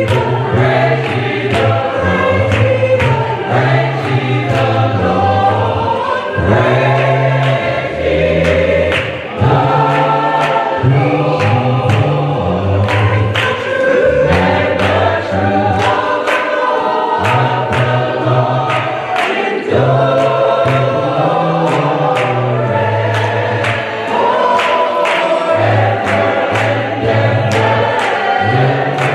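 Gospel choir singing praise music over a live band, with deep bass notes and a steady drumbeat.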